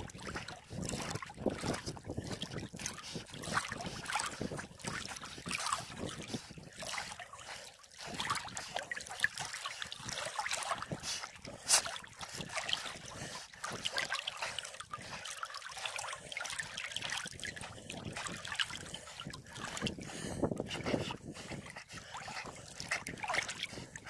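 Water lapping and splashing right at the microphone, a continuous run of small irregular splashes from swimming, with one sharper splash about twelve seconds in.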